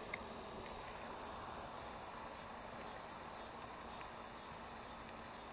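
A steady, high-pitched insect chorus that carries on unbroken, with faint outdoor background noise.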